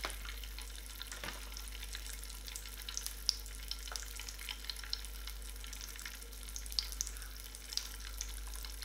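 Crackle bath colour crystals popping in shallow water: scattered, irregular sharp pops and ticks, a few a second, like sizzling, over a faint steady hiss.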